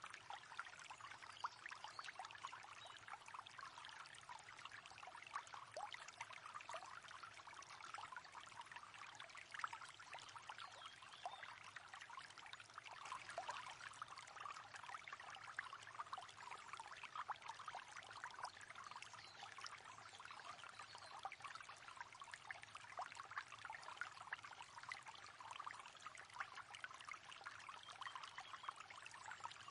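Faint river water babbling and trickling steadily over stones.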